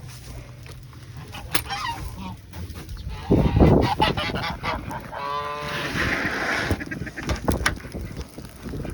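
Domestic goose honking, one clear call about five seconds in and a fainter one earlier, with a louder low rustling thud shortly before the main call.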